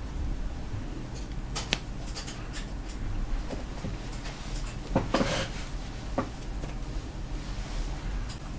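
A few light clicks and knocks of handling, with a brief rustle about five seconds in, over a low steady hum.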